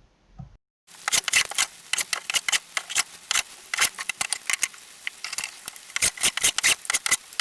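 A rapid, irregular run of sharp clicks and taps, starting after a brief silent gap about a second in.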